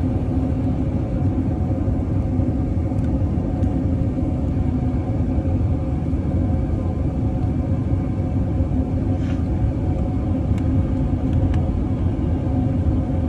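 Steady low rumble inside an Airbus A380's cabin during descent to land: engine and airflow noise with a steady hum, and a few faint ticks in the last few seconds.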